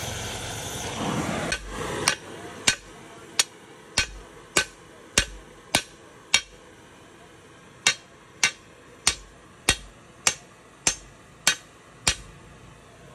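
Oxy-fuel torch hissing for the first second and a half, then a hammer striking a red-hot steel bar on an anvil, forging the end of a pry bar. Sharp, ringing blows come evenly about every 0.6 s, around seventeen in all, in two runs with a short pause near the middle.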